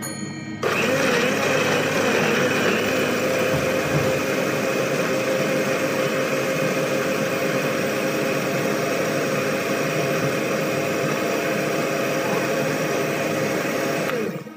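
Electric countertop blender running steadily, grinding red chillies, shallots and garlic into a paste. It switches on sharply about half a second in and winds down just before the end.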